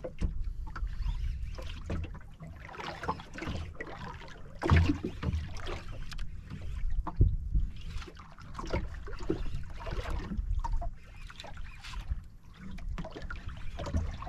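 Water sloshing against the hull of a small outrigger boat at sea, with wind on the microphone and a few sharp knocks, the loudest about seven seconds in.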